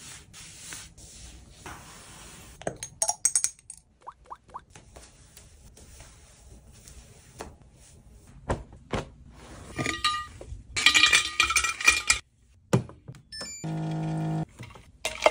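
A quick run of small household routine sounds: soft rustling, scattered taps and clicks, and a few short hissy bursts. Near the end comes a steady machine hum as a Waterdrop countertop water dispenser fills a bottle.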